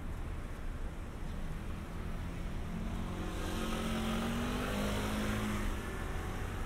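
A car passes close by on a city street: its engine note and tyre hiss swell about three seconds in, peak, then fade away, with the pitch dipping as it goes. The steady hum of city traffic runs underneath.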